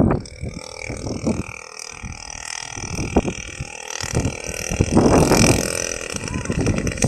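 Gasoline-engined RC plane's 50cc two-stroke engine running unevenly at low throttle, swelling louder about five seconds in.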